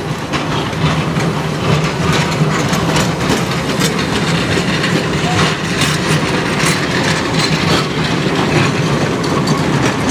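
1920 Brill electric railcars of the Hershey Electric Railway rolling past close by on street track: steel wheels clicking and clattering over the rail, with a steady low hum underneath.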